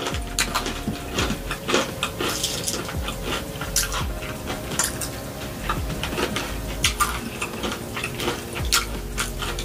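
Close-miked chewing of crunchy fried chicken: many short crackles and clicks of the breading with wet mouth sounds.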